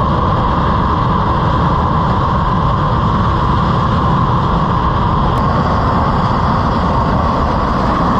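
Twin jet engines of an F/A-18 fighter running at high power on a carrier's catapult, a steady loud roar with a high whine in it.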